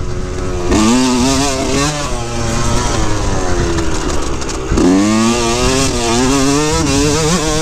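A 2003 Yamaha YZ125's single-cylinder two-stroke engine riding hard: it revs up about a second in, the revs die away slowly over the next few seconds, then the engine snaps back up to high revs near the five-second mark and holds there, wavering.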